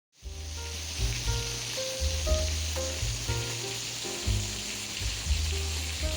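Steady hiss of rain, a rain sound effect, over soft music with light keyboard-like notes and a low bass line; it starts just after a brief moment of silence.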